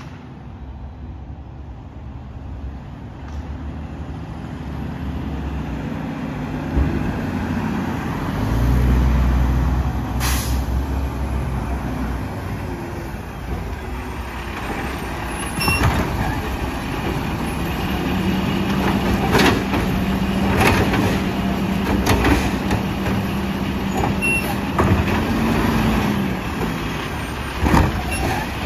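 Mack LR garbage truck's engine getting louder as it pulls up and stops, with an air-brake hiss about ten seconds in. In the second half a steady whine that rises slightly near its end and a series of sharp clanks come from the Labrie Automizer's hydraulic side-loading arm working.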